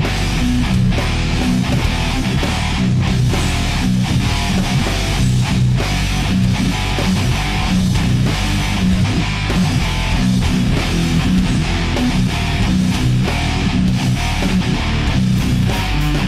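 Rock music with electric guitar, bass and a steady beat.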